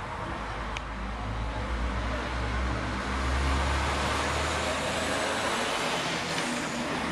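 Road traffic passing on the street, with a heavy truck driving by close to the microphone: its low engine rumble and tyre noise build from about halfway through and pass by near the end.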